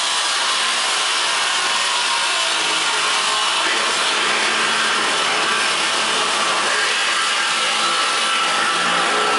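A steady, even hiss at a constant level throughout.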